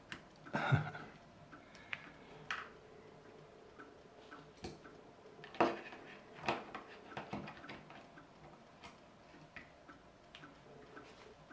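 Light plastic clicks and taps from the parts of a plastic litter picker's jaw and handle being handled and fitted together on a tabletop, with a louder clatter about a second in and irregular single clicks after it.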